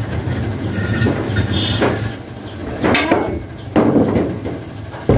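Household clatter: a few sharp knocks as things are handled and a wooden wardrobe is opened, over a steady low hum.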